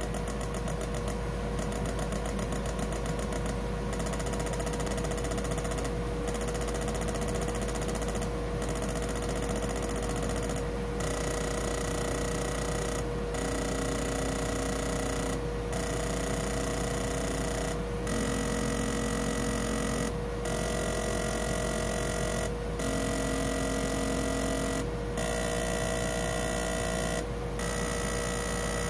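Keihin IB22-NUJ motorcycle fuel injector being pulsed on an injector test bench during a spray pattern test: its solenoid clicks rapidly in a steady buzz, with brief breaks about every two and a half seconds.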